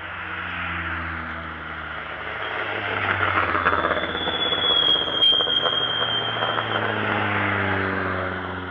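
Several competition cars passing one after another, their engines rising and falling in pitch as each goes by. A high, steady squeal lasts about two seconds, starting about four seconds in as a car passes close.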